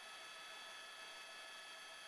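Faint steady hiss with several thin, unchanging high-pitched tones: an electronic whine on a quiet broadcast feed.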